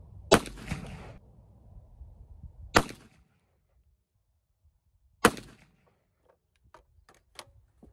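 Three shots from a Kel-Tec PMR-30 .22 Magnum semi-automatic pistol, sharp cracks about two and a half seconds apart, the first followed by a short echo. A few faint clicks near the end.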